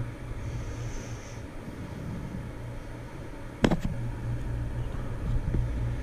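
Steady low hum of a running geothermal heat pump system's air handler, with a single sharp knock about three and a half seconds in.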